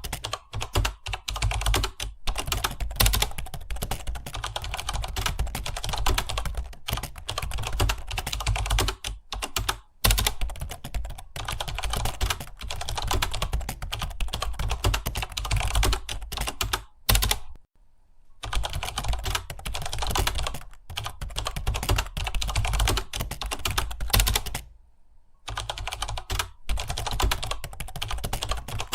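Fast, continuous typing on a computer keyboard, a dense run of key clacks broken by two short pauses, one a little past the middle and one near the end.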